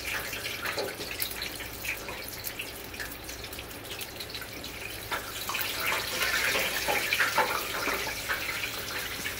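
Hot oil sizzling and crackling in an electric countertop deep fryer as flour-coated chicken wings fry, louder from about five seconds in as more wings are dropped into the oil.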